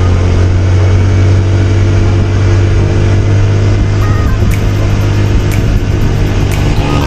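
Motor scooter cruising steadily, its engine and road noise making a constant low hum, mixed with background music. A light ticking beat in the music comes through about halfway in.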